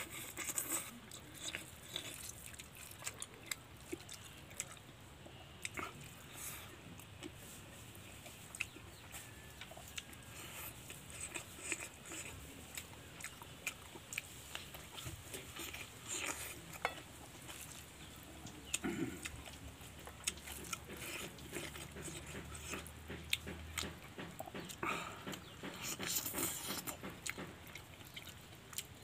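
Close-up eating sounds of a person chewing pork leg and rice by hand: irregular wet smacks and short clicks of mouth and fingers.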